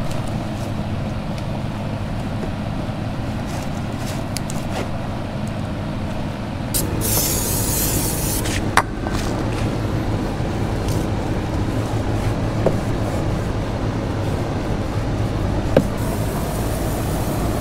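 Aerosol can of tire-shine foam spraying: one strong hiss of about a second and a half some seven seconds in, and a fainter hiss near the end, over a steady low drone. A few light clicks fall in between.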